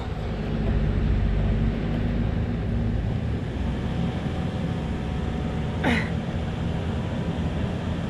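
A motor vehicle engine running steadily at a low pitch, with a brief sharp sound about six seconds in.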